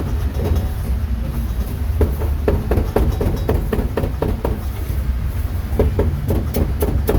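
Cleaver chopping pork on a chopping block: a run of irregular knocks that comes faster near the end, over a steady low rumble.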